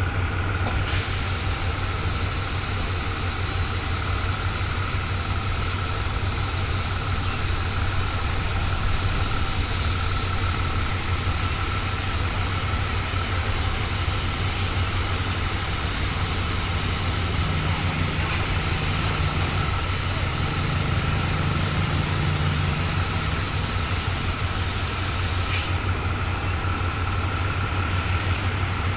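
Diesel locomotive engine idling: a steady low hum with a faint steady whine above it. There are two sharp clicks, one about a second in and one near the end.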